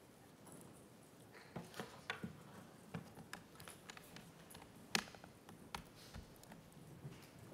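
Faint, irregular clicks and taps of a video cable and its adapter being handled and plugged into a laptop, with one sharper click about five seconds in.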